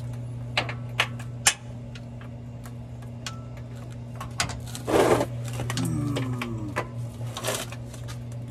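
Hand knocking and scraping against the pickup's metal skid plate and underbody while reaching up for the oil filter: a few sharp taps, then a louder rustle about five seconds in, over a steady low hum.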